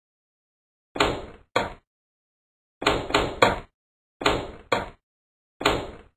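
A series of about eight sharp slam-like sound-effect hits, each cutting in suddenly and dying away within about half a second, falling irregularly in pairs and threes. They punctuate words landing on screen one after another.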